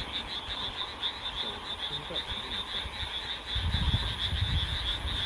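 A steady chorus of many frogs calling, a dense fast pulsing that never lets up. A low rumble joins in about three and a half seconds in.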